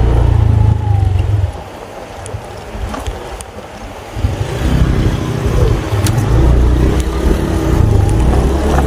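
Riding noise from a small motorcycle on the move: a heavy low rumble of engine and wind on the microphone. It eases off for a few seconds near the middle, then comes back.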